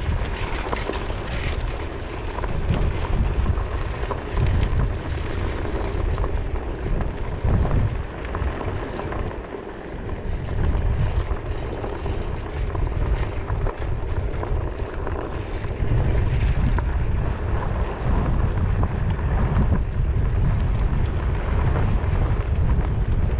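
Wind buffeting a helmet-mounted action camera's microphone while riding, over a low rumble from a treaded board tyre rolling on rough dirt and sand, with occasional small knocks from bumps.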